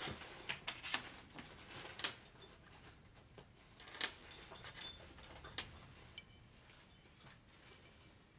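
Small steel bolts clicking and clinking against one another and the steel workbench as they are picked up and tried in an engine cover. A handful of sharp, separate metallic clicks, most of them in the first six seconds.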